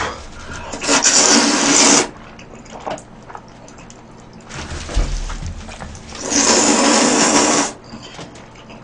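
Jjajangmyeon (black bean sauce noodles) being slurped with chopsticks: two long, loud slurps, one about a second in and one about six seconds in, each lasting over a second, with softer mouth noises and chewing between.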